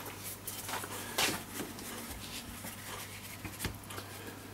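A cardboard picture mount being slid and set in place over a watercolour painting: several short scrapes and rustles of card with light knocks, the loudest just over a second in, over a steady low hum.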